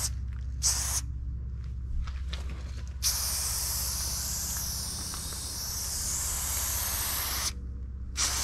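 Aerosol spray paint can spraying in bursts: a short hiss, a long hiss of about four and a half seconds, then another short hiss near the end, over a steady low hum.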